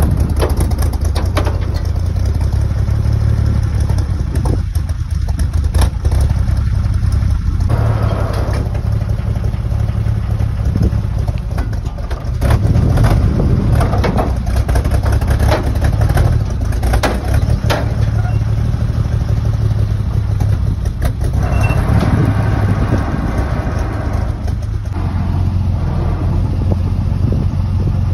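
Old truck engine running steadily, probably the 1956 International R200 wrecker's. It grows louder for a stretch about 12 seconds in and again about 22 seconds in.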